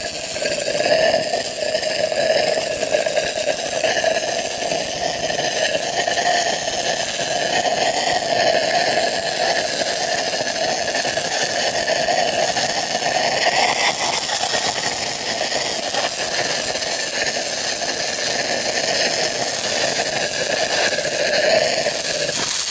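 Stick-welding arc of a 6010 electrode running a root pass on 2-inch schedule 160 pipe: a steady, unbroken crackle and hiss.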